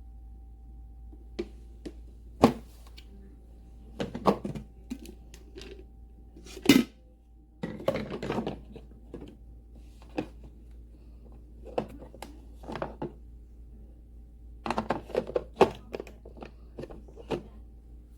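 Irregular clicks, knocks and thunks of a coffee maker's parts being handled, a few of them sharp, over a faint steady hum.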